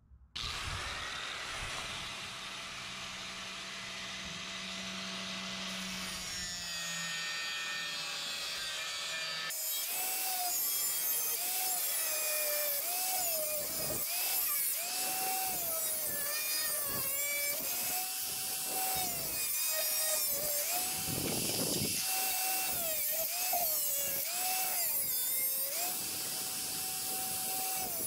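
Angle grinder with a cut-off wheel, its motor running at a steady pitch. From about ten seconds in it cuts through thin sheet steel with a harsh hiss, the motor pitch sagging and recovering again and again as the wheel is pushed into the cut.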